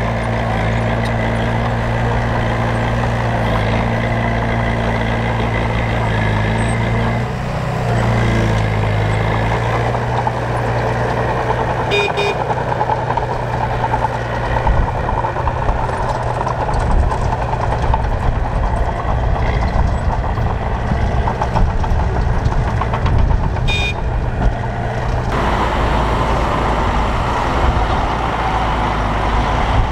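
Heavy diesel construction machinery on a road-building site, a bulldozer and trucks, running loud and continuous. The engine drone is steady for the first several seconds and then turns rougher and more uneven. Two short high-pitched beeps sound about twelve seconds apart.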